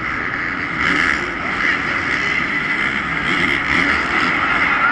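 450cc four-stroke supercross bikes racing round the track, their engines running over the steady noise of a large crowd.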